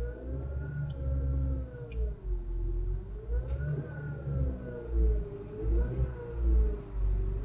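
Chevrolet F16D4 1.6-litre four-cylinder petrol engine running with a low rumble and an extraneous whine whose pitch slowly rises and falls, wavering up and down about every couple of seconds like a siren.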